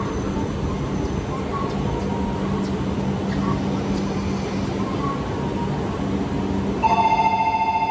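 Steady hum and platform noise from a stationary E4 series Max Shinkansen train. About a second before the end, an electronic platform departure bell starts up, louder: a rapidly pulsing ring on several steady tones.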